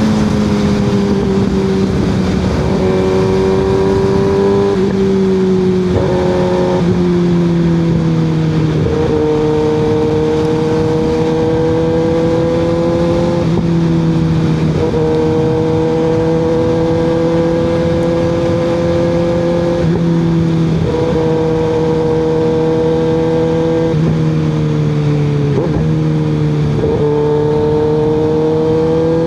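Kawasaki ZX-6R 636's inline-four running loud through an M4 GP19-style exhaust with the baffle removed, heard from the bike while riding. The engine note holds steady for a few seconds at a time, then breaks off briefly and steps to a new pitch, about a dozen times.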